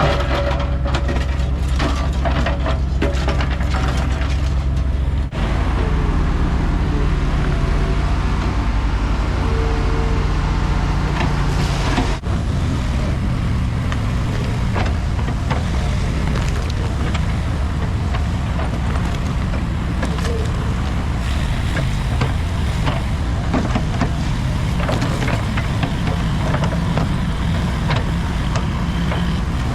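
Diesel engine of heavy demolition equipment running steadily under load, with scattered knocks and clanks of concrete and debris being worked.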